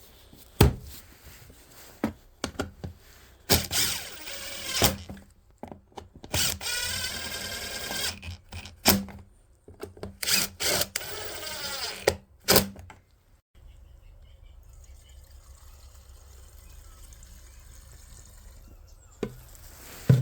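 Knocks and clicks of tools and plastic and metal parts as a cut-off saw is put back together, with a power driver whirring up and winding down about six to eight seconds in. From about thirteen seconds on there is only a steady low hum, broken by a couple of clicks near the end.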